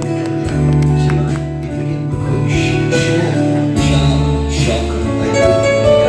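Live rock band playing: long held bass notes under sustained guitar chords.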